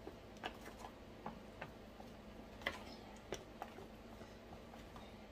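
Faint, scattered light clicks and taps at an uneven pace as pineapple pieces are handled and placed into a plastic food container.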